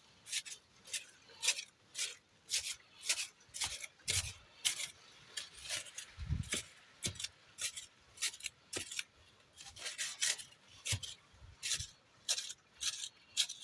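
Repeated short scraping and rustling strokes, about two a second and uneven in spacing.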